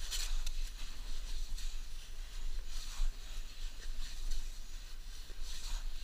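Gloved hands scooping and scraping wet sand while digging out a razor clam, a few short scratchy swishes under a steady low rumble.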